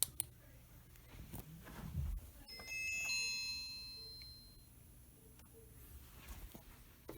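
An electronic incoming-call ring chime: several high tones sound together about two and a half seconds in, then fade out over about two seconds. A couple of clicks come just before, at the start.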